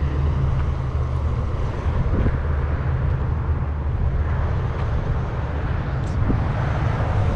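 Steady low rumble of road traffic, with an even hiss above it and no clear single event.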